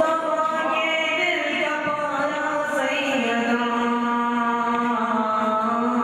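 A man's voice singing a manqabat, an Urdu devotional poem, as a slow chant, holding long notes and stepping down in pitch about halfway through.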